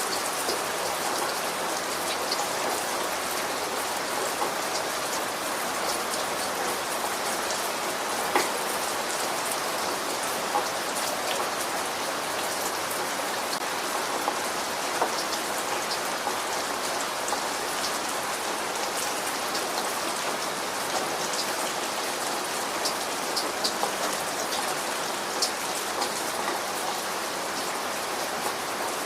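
Steady rain falling, an even hiss with many scattered sharper drop hits on a surface.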